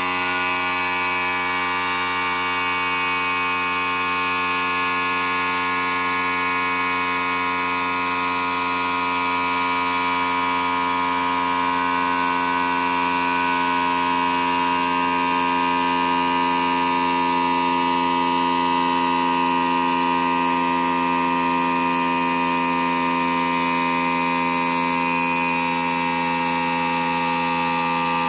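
Restored piston air compressor running steadily, its electric motor and pump giving an even, pitched mechanical drone.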